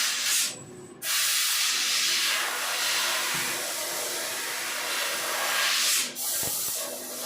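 CNC laser cutter hissing steadily over a low steady hum. The hiss cuts off briefly about half a second in, restarts after a second, and dips again about six seconds in.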